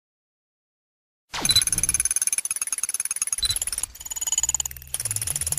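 Sci-fi computer intro sound effect: after about a second of silence, a rapid pulsing chatter of electronic beeps and blips with high steady tones. A low hum joins in during the second half.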